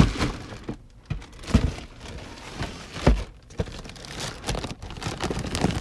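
Clear plastic bag crinkling and rustling as a toy dinosaur figure is handled and pulled out of it and its cardboard box, with a couple of dull knocks.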